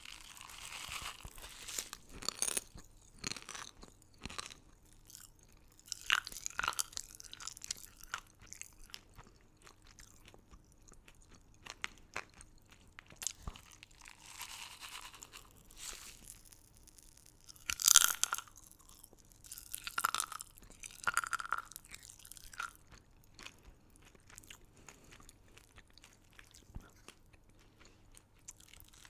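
Close-miked crunching and chewing of hard, crunchy candy, in irregular clusters of sharp crunches, the loudest about eighteen seconds in, with softer rustling between bites.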